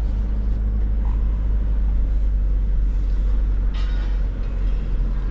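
A steady low engine rumble with a constant hum, and a brief high chirp about four seconds in.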